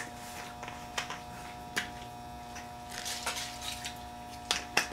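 Scattered light clicks and small handling noises, about half a dozen, over a faint steady electrical hum.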